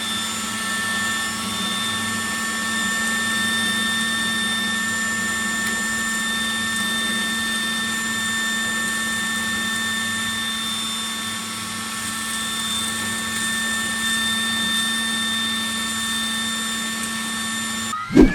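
Homemade PVC-pipe vacuum cleaner's electric motor and fan running at a steady speed, a constant hum with high whining tones over a rush of air; it cuts off suddenly near the end.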